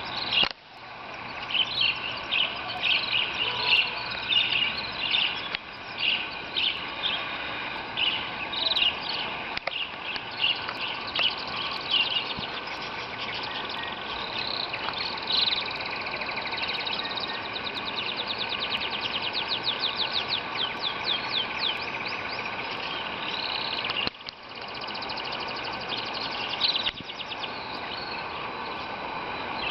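Canaries singing together in an aviary: overlapping chirps and warbling phrases, with a long, fast trill of rapidly repeated notes about two-thirds of the way through.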